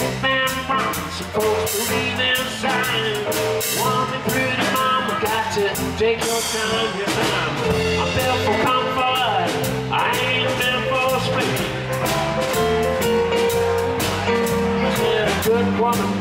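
Live electric blues band playing a 12-bar blues in C: electric guitar, electric bass, drum kit and keyboard.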